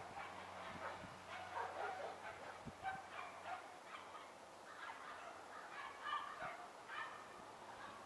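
Faint animal calls, repeating in short irregular bursts.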